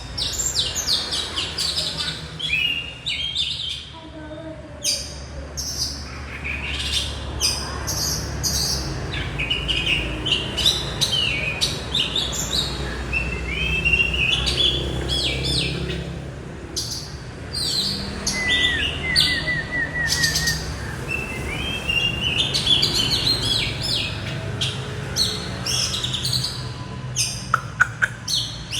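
Many small birds chirping and calling at once, short overlapping chirps throughout, with a quick trill of repeated notes about two-thirds of the way through. A low steady hum runs underneath.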